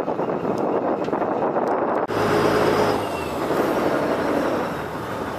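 Steady noise on the deck of a fishing boat at sea: the boat's engine running, mixed with wind. The sound changes abruptly about two seconds in, and a low steady hum stands out for about a second after the change.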